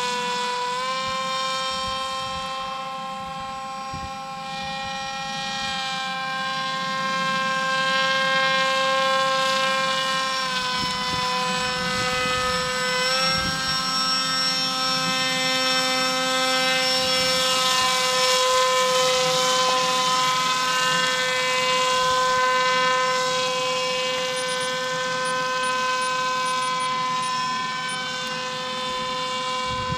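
Paramotor engine and propeller droning steadily in flight, its pitch dipping slightly about ten seconds in and rising again a few seconds later as the throttle changes.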